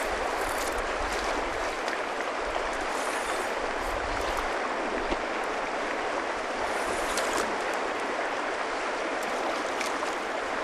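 Steady rushing of a river's flowing water.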